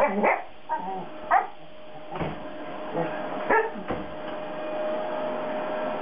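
English springer spaniel giving a string of short barks and yips in the first four seconds, playing at a vacuum cleaner, over the steady hum of a running canister vacuum cleaner, which carries on alone near the end.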